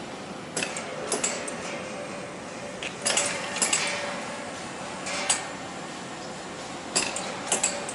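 Automatic dorayaki-making machine running, with clusters of sharp metallic clinks and clatters from its moving metal parts every second or two over a steady hum.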